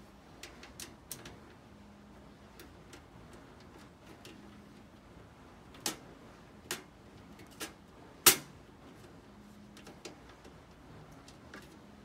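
Scattered sharp clicks and knocks of a small screwdriver and hands on a steel PC case while working at the rear fan mount, the loudest knock about eight seconds in.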